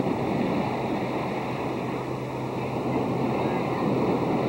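Gentle surf washing in the shallows as a steady rushing hiss, coming in abruptly with a click at the start, over a constant low hum from the camcorder.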